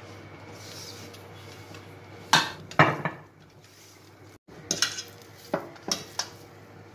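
Hands mixing and kneading flour-and-water dough in a stainless steel bowl: a soft rustle at first, then sharp knocks and clanks of the metal bowl, two loud ones about two and a half seconds in and several more in the last two seconds.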